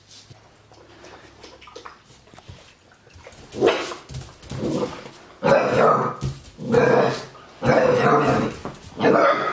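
Eight-week-old Labrador Retriever puppy barking at his own reflection in a mirror: about six high, young barks in quick succession, beginning about three and a half seconds in.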